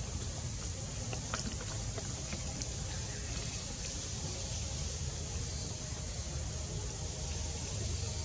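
Steady outdoor background hiss with a low rumble underneath and a few faint ticks.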